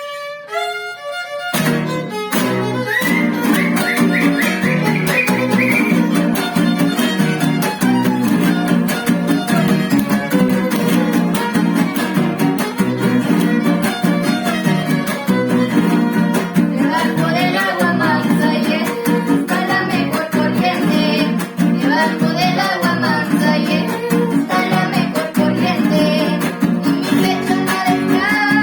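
Huasteco trio playing the instrumental opening of a huapango (son huasteco). The violin carries a lively melody over the steady strummed rhythm of the jarana huasteca and the quinta huapanguera. A few solo violin notes come first, and the whole trio comes in about a second and a half in.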